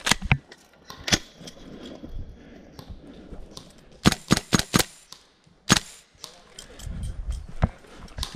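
Airsoft guns firing: sharp cracking shots, singly and in a quick string of four about four seconds in.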